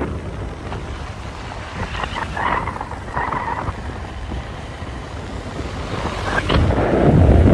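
Wind buffeting a phone's microphone outdoors: a rough, low rumble that swells and gusts, loudest near the end.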